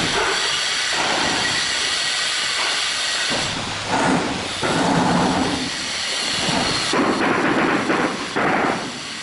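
Steel trowel scraping and spreading wet cement mortar on a concrete floor bed, a rough scraping noise in uneven strokes, louder stretches about a third of the way in and again near the end.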